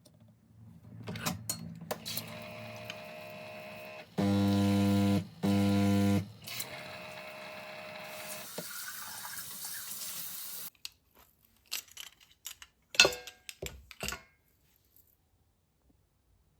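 Home coffee machine running, with water flowing and two loud humming pump buzzes about four to six seconds in. It stops after about ten seconds and is followed by a few sharp clicks and knocks.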